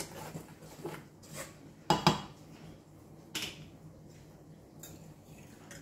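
Kitchen utensils and mixing bowls clinking and knocking while pancake ingredients are stirred: a handful of separate sharp knocks, the loudest pair about two seconds in.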